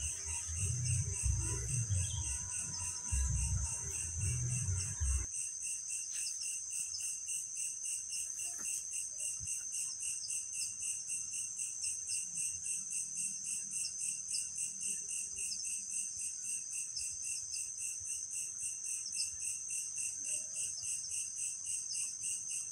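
Steady insect chorus: a continuous high, rapidly pulsing chirring. Low rumbling on the microphone accompanies it for the first five seconds, then stops abruptly.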